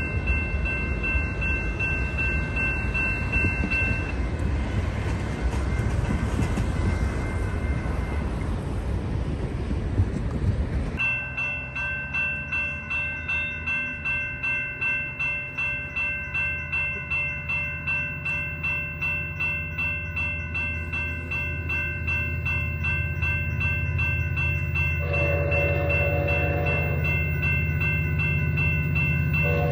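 Diesel-hauled freight train passing at speed: a loud, even rumble and rush of wheels on rail that breaks off suddenly about eleven seconds in. A lower, steady rumble follows, pulsing about twice a second, and a train horn chord sounds briefly twice near the end.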